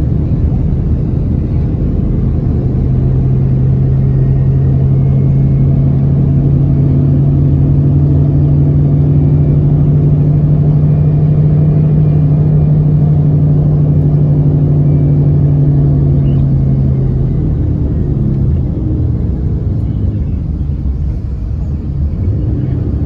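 Bus engine and road rumble heard from inside the cabin of a moving coach: a steady engine note holds for most of the time, then drops away about two-thirds of the way through, leaving a low rumble of tyres and road.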